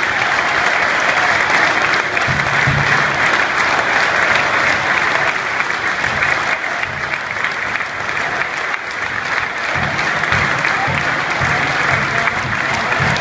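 A large stadium crowd applauding steadily, with a few low thumps in the mix about two seconds in and again near the end.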